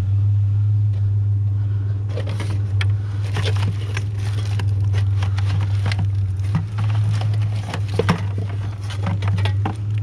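Truck engine idling with a steady low hum. From about two seconds in, it is joined by irregular clinks and scrapes of scrap metal being handled and rummaged through.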